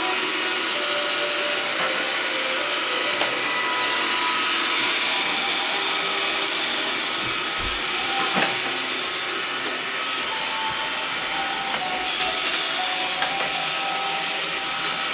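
iRobot Roomba 535 robot vacuum running, its vacuum motor and brushes making a steady whirring noise, with one brief knock about eight seconds in.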